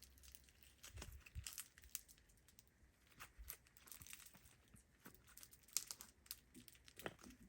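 Faint, scattered crackling and clicking of a foam-bead slime being squeezed and stretched in the hands.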